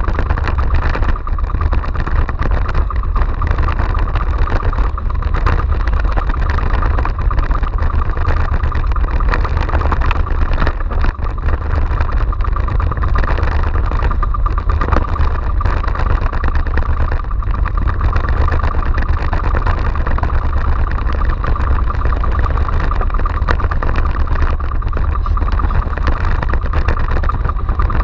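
Outrigger fishing boat's (banca's) engine running steadily underway, a continuous unbroken drone.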